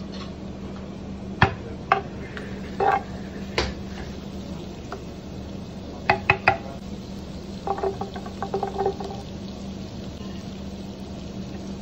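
A metal spoon clinks and knocks against a plastic margarine tub and an earthenware dish as margarine is scooped out and dropped in. Near the end comes a quick run of small clicks as garlic cloves land in the dish. A steady low hum runs underneath.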